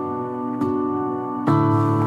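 Instrumental background music of held chords, with a new, louder chord struck about a second and a half in.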